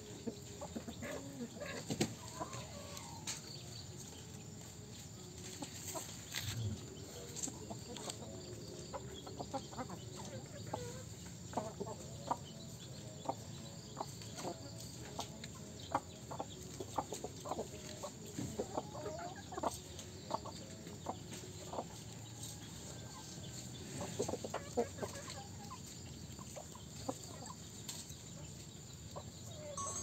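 Chickens, hens and roosters, clucking as they feed, with many short sharp taps of beaks pecking at the ground.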